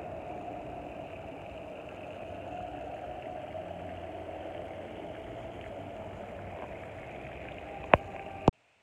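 A steady mechanical hum with a low rumble underneath and no clear rhythm. Near the end come two sharp clicks about half a second apart, and then the sound cuts off abruptly.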